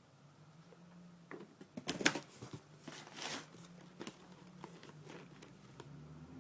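Packaging being handled and opened by hand: rustling and crinkling with a scatter of sharp clicks, busiest between one and five seconds in and loudest about two seconds in.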